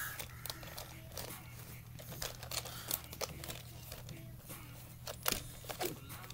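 Scattered light clicks, taps and rustles of hard plastic toy dinosaur figures being handled and knocked together, over a low steady hum.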